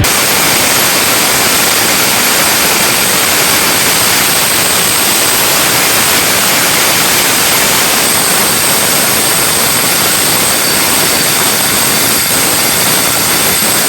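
Loud, steady rushing machine noise with a few thin high whines on top, starting and stopping abruptly.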